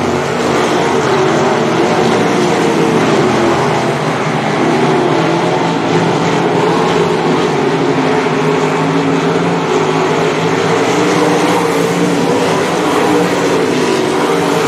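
Several 305 winged sprint cars' small-block V8 engines racing together at speed on a dirt oval. They give a loud, continuous blend of engine notes whose pitch rises and falls as the cars lift and accelerate through the turns.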